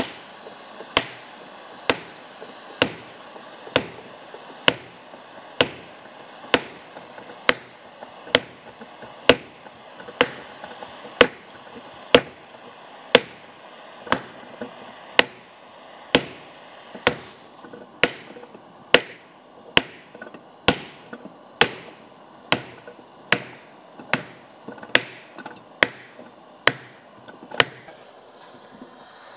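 Steady hammer blows on the Sunbeam 1000HP's gearbox, about one a second, each with a short ring. The gearbox casing has been heated to help a tight part move. The blows stop just before the end.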